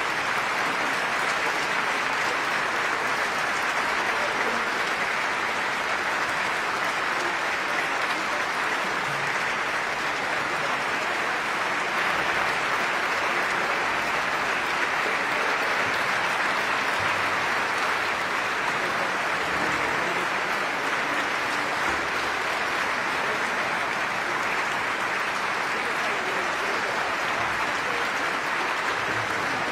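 Audience applauding steadily, a continuous ovation for the performers.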